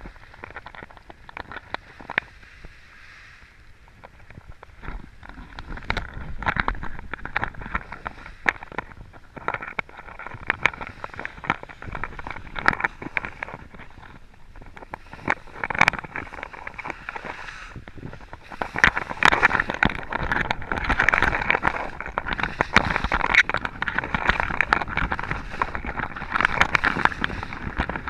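Skis sliding and scraping over packed piste snow on a downhill run, with many short sharp scrapes and clacks. The scraping grows louder and more continuous about two-thirds of the way through.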